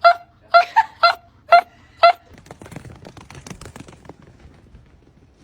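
A dog whining in short, high yips, about two a second, that stop about two seconds in. Soft scuffling follows.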